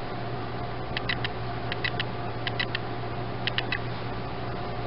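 Light clicking taps in quick clusters of two or three, about once a second, as a stainless mesh strainer is tapped and shaken to empty cooked pasta into a pan. A steady low hum runs underneath.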